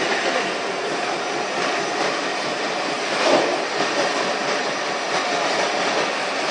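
Sawdust briquette machine running: a loud, steady mechanical noise, with one brief louder surge about three seconds in.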